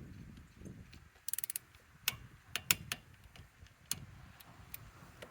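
Flex FX1451 cordless impact wrench at work on a lug nut: a short, fast rattle of hammer blows a little over a second in, then scattered sharp clicks and knocks of the wrench and socket.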